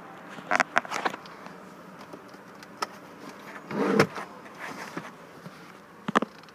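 Camera handling noise in a car cabin: a few sharp clicks and knocks about half a second to a second in, a heavier bump near the middle, and two more clicks near the end, over a low steady hum.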